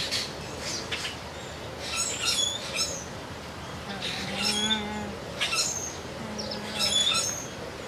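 Birds chirping in clusters of short, high-pitched calls: a burst about two seconds in, another around the middle, and more near the end, over a steady background hiss of an enclosure.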